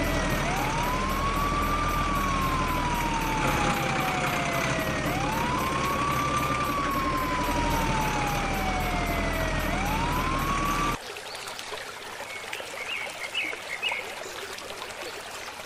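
Dubbed siren wailing in slow cycles, each a quick rise followed by a long fall, about every four and a half seconds, over a low rumble. It cuts off about eleven seconds in, leaving a quieter steady rush of water with a few short high chirps.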